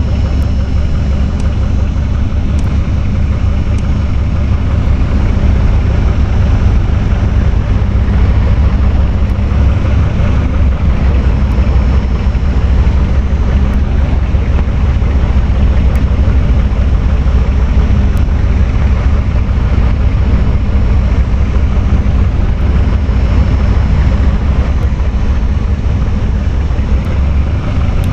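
Electric fan running steadily, a low motor hum with the rush of air from the blades.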